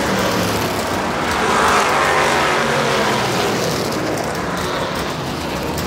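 Dirt-track race cars' engines running as the cars circle the oval, swelling loudest as one goes by about two seconds in.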